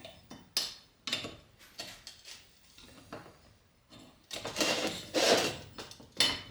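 Flathead screwdriver prying a snap ring (lock ring) out of a dirt bike wheel hub, steel on steel: a few sharp clicks, then a louder scraping about four seconds in, and a last click near the end.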